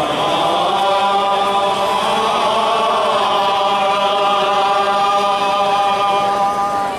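Men's voices chanting an Assamese devotional nam in unison, holding one long steady note that breaks off near the end.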